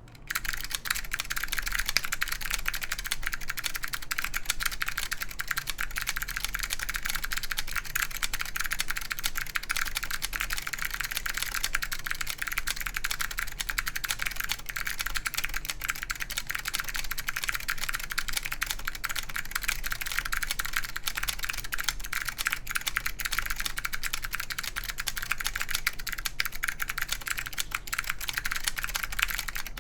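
Fast, continuous typing on an ai03 Lunar II mechanical keyboard with clicky SKCM Blue Alps switches, an aluminium plate and Apple Extended Keyboard II keycaps: a dense stream of sharp, crisp clicks.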